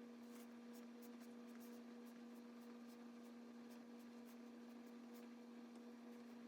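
Near silence with a steady low electrical hum and many faint, quick ticks of a stylus tapping and stroking a tablet screen.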